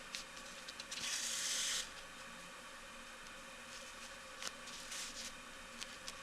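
Hand-sewing a woolen insole onto a slipper with needle and thread: a rubbing swish lasting under a second about a second in, then faint rustles and small clicks.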